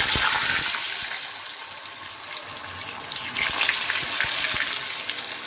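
Whole potatoes sizzling in hot oil: a loud, steady hiss that starts suddenly as the first potato goes in, eases a little, then grows louder again about three seconds in as another potato is dropped in.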